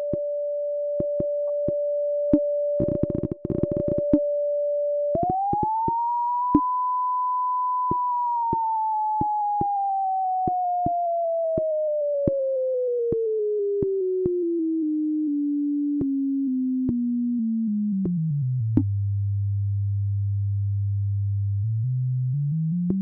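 Pure sine-wave test tone for a hearing test. It holds a steady mid pitch, jumps higher about five seconds in, glides slowly down to a deep low hum, holds there for a few seconds, then starts rising again near the end. Faint short clicks sound now and then, with a brief noisy patch about three seconds in.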